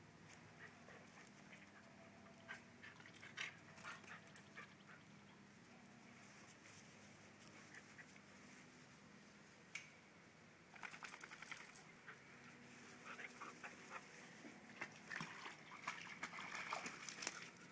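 Faint sounds of a boxer and a husky puppy playing: scattered scuffles and clicks, growing busier over the last several seconds.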